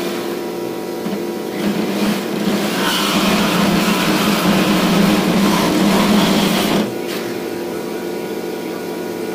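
Reciprocating saw cutting a steel axle tube: a steady motor hum, with the louder noise of the blade biting into the metal from about a second and a half in until it drops away at about seven seconds.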